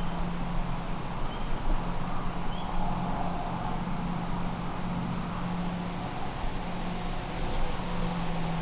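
A steady low mechanical hum over an even hiss.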